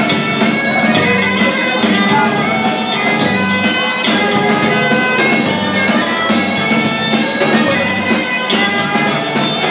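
Live twarab (Comorian taarab) music from a band with electric bass guitar: a continuous dense mix of sustained melody notes over a steady beat.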